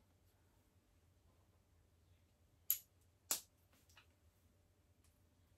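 Small plastic Lego pieces clicking as they are pressed together by hand: two sharp clicks a little over half a second apart about halfway through, then a fainter one, over quiet room tone.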